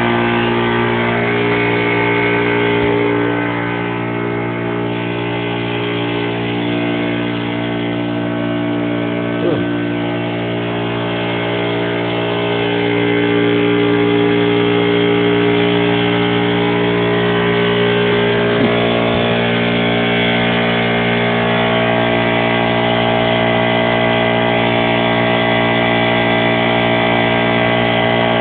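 An engine running steadily at a constant speed, its even note changing slightly about halfway through.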